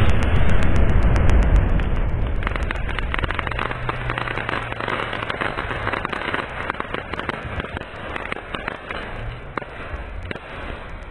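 Rio multi-colour aerial skyshot shell bursting overhead with a loud bang at the start, followed by several seconds of dense crackling from its crackling stars that slowly fades out near the end.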